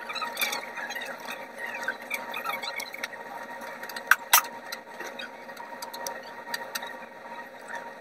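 Office room tone with a steady hiss, scattered small clicks and faint squeaks, and two sharp clicks close together about four seconds in.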